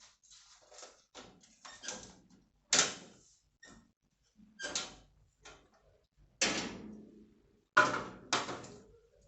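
Irregular knocks and bangs, a few sharp ones with a short ringing tail; the loudest comes a little before three seconds in, and two more strong ones come near the end.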